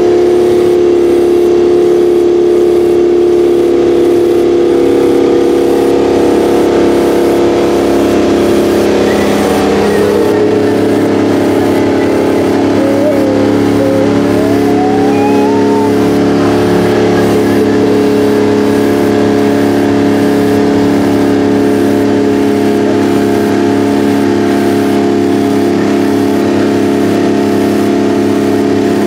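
Detroit Diesel 12V92 two-stroke V12 of a Rite 750 Earthquake four-wheel-drive tractor running hard under load while pulling a 20-bottom moldboard plow, heard from inside the cab as a loud, steady drone. The engine note changes about ten seconds in.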